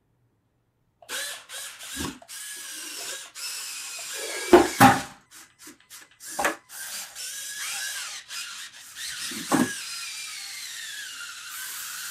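LEGO Technic climbing car's small electric mini motors whining through plastic gears as it drives up a vertical block, starting about a second in. The pitch dips and rises as the load changes, and several knocks and clatters break in, the loudest about halfway through.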